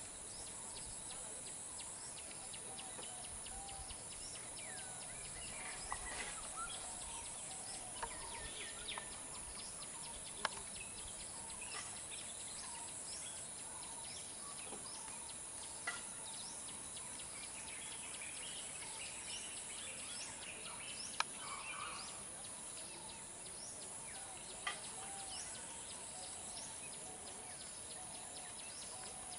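Wild birds chirping and whistling on and off over a steady high-pitched insect hiss, with a few sharp clicks scattered throughout.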